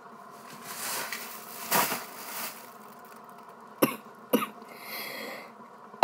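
A boy coughing several short times into his hand, with the faint steady whir of a fidget spinner still spinning on the table beneath it.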